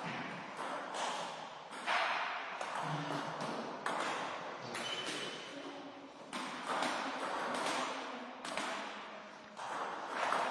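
Table tennis ball being played back and forth: a run of sharp clicks as it strikes the rackets and bounces on the table, each echoing briefly in the hall.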